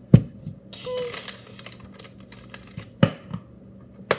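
Knocks and clatter of kitchen things being handled and set down on a table close to the microphone: one loud knock right at the start, a rustling clatter about a second in, and two more sharp knocks about three and four seconds in.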